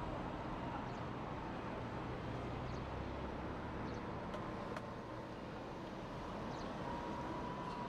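City street ambience: a steady wash of road traffic with a low hum, a few faint clicks and a faint thin tone near the end.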